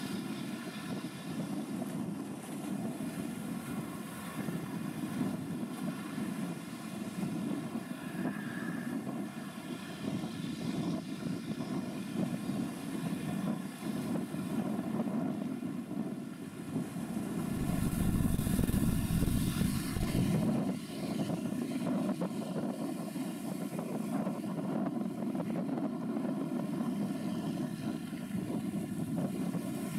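Steady low drone of ship engines carrying across the water, with a faint hum of steady tones above it. About two-thirds of the way in, a gust of wind buffets the microphone with a deep rumble for a few seconds.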